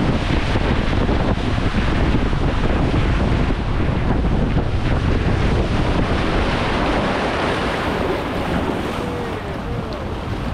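Rushing water and wind buffeting the microphone during a ride down a water slide; the deep wind rumble drops away about seven seconds in.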